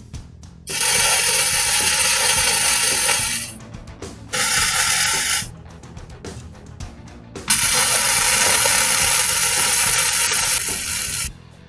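Stick (arc) welding on steel tubing: the arc crackles and sizzles in three runs, about two and a half seconds starting just under a second in, a short one around four and a half seconds, and a longer one from about seven and a half to eleven seconds, with quieter gaps between.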